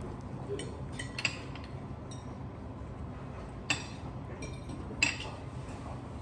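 A table knife clinking against dishes and tableware at a breakfast table: a handful of short, sharp clinks, the two loudest about four and five seconds in, over a low steady room hum.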